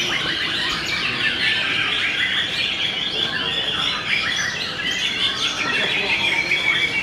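Many caged white-rumped shamas (murai batu) singing at once, a dense, unbroken tangle of quick chirps and whistles.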